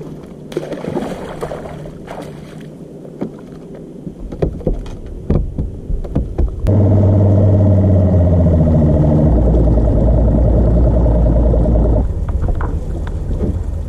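Scattered knocks and clicks over a low rumble, then an engine's steady drone with a deep hum starts suddenly about seven seconds in and cuts off abruptly about five seconds later, the loudest sound here.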